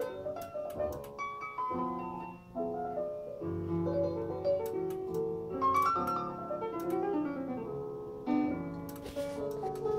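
Piano music played back from tape on a Uher Royal de Luxe reel-to-reel recorder, its speed set for 60 Hz mains by a new motor pulley and accurate to about half a percent.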